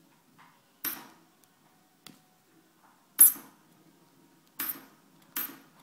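Ultrasonic dental scaler worked against a cat's teeth in short bursts: four brief hissing, clinking spurts, the loudest about three seconds in.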